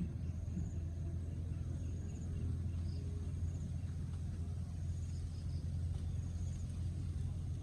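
Outdoor ambience: a steady low hum, with faint short high chirps repeating every second or so.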